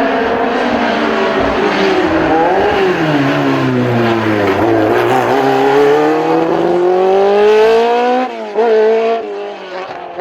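Historic racing car's engine revving hard under acceleration. Its pitch dips twice, then climbs steadily for a few seconds, and near the end it gives a few quick throttle blips.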